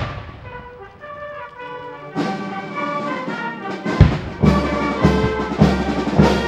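Military brass band playing a ceremonial piece, with bugles and sousaphone; it swells to full volume about two seconds in, and deep drum beats land about every half second in the second half. It opens on the fading ring of a loud bang.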